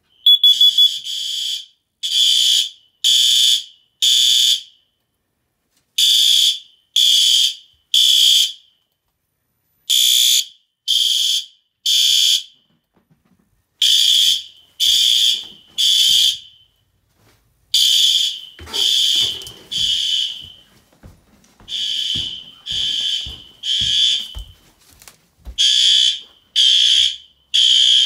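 Synchronized System Sensor fire alarm horn-strobes sounding together in the temporal-three evacuation pattern: three loud, high-pitched horn blasts, a pause, then three more, over and over. Some faint low knocks come in during the second half.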